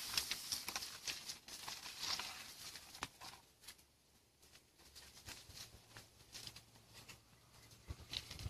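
Footsteps and rustling through dry grass and weeds: a dense run of crackles and swishes that thins out and fades after about three seconds, with a few crackles again near the end.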